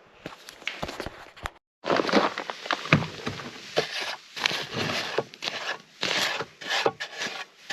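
Footsteps crunching through snow, about two steps a second, scratchy and uneven, with a brief break to silence about a second and a half in.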